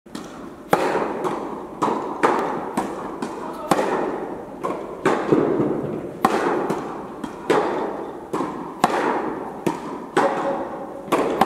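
Tennis rally in an indoor hall: racket strings striking the ball and the ball bouncing on the court, sharp pops about two a second, each ringing on in the hall's echo.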